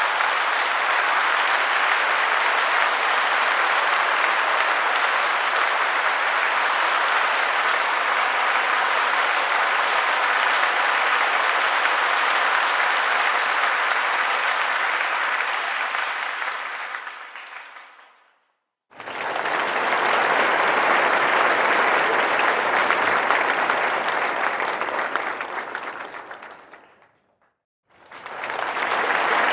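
Crowd applause: dense, even clapping that fades out a little over halfway through. A second round starts abruptly, fades out after about eight seconds, and a third begins near the end.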